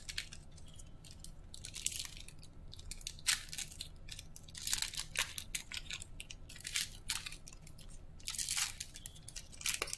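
Foil trading-card pack wrapper crinkling and crackling as hands tear it open and pull the cards out, in irregular bursts of crackle.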